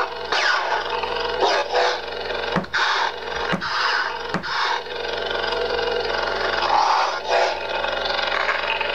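Lightsaber sound font playing through the hilt's Naigon Igniter2 sound board and 23 mm speaker: a steady electric blade hum with swooshing sweeps. Three short sharp hits come about a second apart near the middle.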